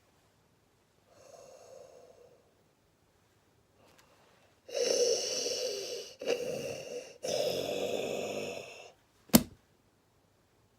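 A person imitating Darth Vader's respirator breathing into the microphone. There is one faint breath about a second in, then three loud, hissing breaths, and a single sharp click near the end.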